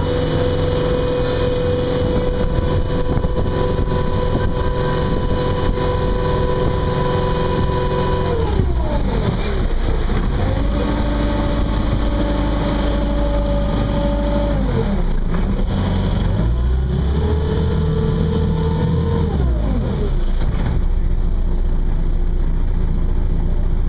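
Boat engine running at a steady speed, then throttled down about a third of the way in. It climbs back to a lower speed, drops and climbs again, and falls to a low idle near the end as the boat slows to come alongside a dock.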